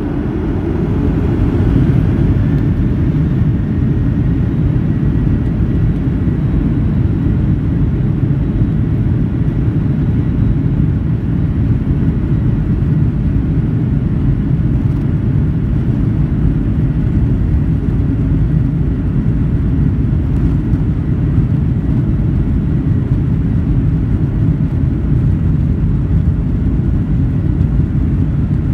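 Boeing 737 jet engines heard from inside the cabin, growing louder over the first two seconds as they spool up, then a steady loud low rumble and rush during the takeoff roll.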